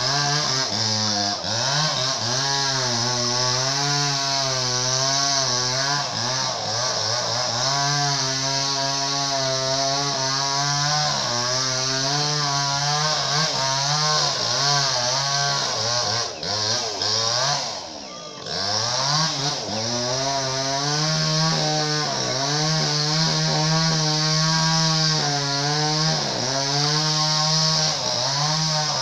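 Mini chainsaw engine running hard as it cuts through an oil palm trunk, its pitch wavering up and down under load. About two thirds of the way through the revs and level drop briefly, then climb back and the cutting goes on.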